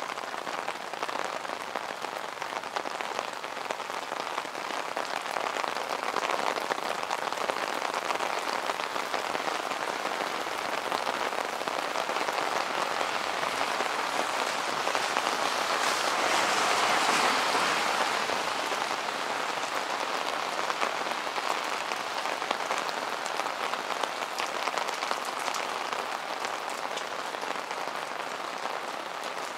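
Steady rain falling on wet streets, growing louder for a few seconds around the middle before easing back.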